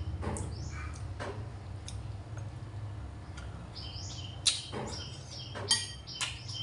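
Mukbang eating sounds: a man chewing and slurping soup from a spoon, with a few sharp short smacks or clicks, the loudest about four and a half and nearly six seconds in. Quick runs of repeated high chirps come and go in the background over a steady low hum.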